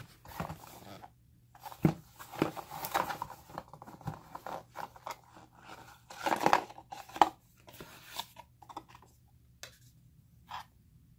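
Paper and plastic packaging being handled while a new action camera's box is unpacked: irregular rustling and crinkling with a few sharp clicks, dying away after about nine seconds apart from one last short rustle.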